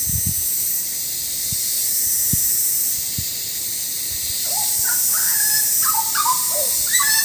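Hooded butcherbird singing: from about four and a half seconds in, a run of clear fluting whistles that step up and down in pitch in quick phrases, over a steady high hiss.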